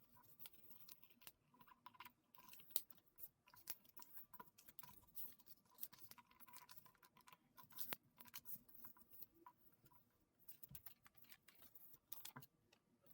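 Faint crinkling and creasing of a paper sheet, many small irregular crackles: paper being folded into a paper airplane.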